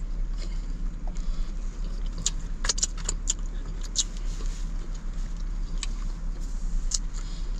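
Eating mouth sounds from a man eating sticky sauced chicken wings: a handful of short, sharp wet smacks and clicks as he licks his fingers and chews. A steady low hum lies under them.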